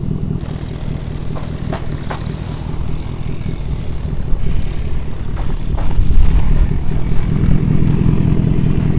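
Pickup truck engine idling close to the exhaust, a steady low rumble, with a few light knocks and clatters.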